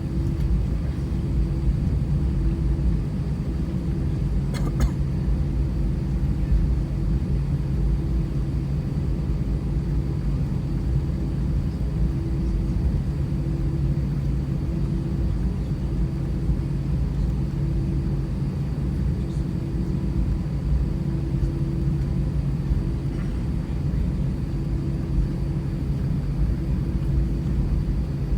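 Airbus A319 jet engines and airflow heard from inside the cabin: a steady, loud rumble with a low hum that throbs slowly, and a single small click about five seconds in.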